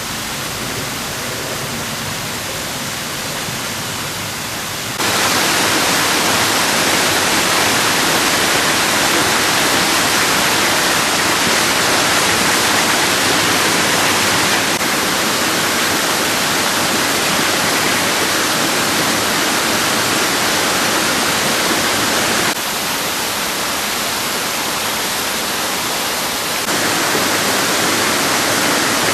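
Running water giving a steady, even hiss. It steps up in level about five seconds in, then drops and rises again a little a few times later.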